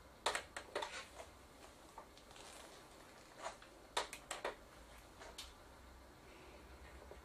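Sharp clicks and light knocks from handling the LCD TV and its controls while powering it up: a quick cluster near the start, another about four seconds in, and a few single clicks after, over a faint low hum.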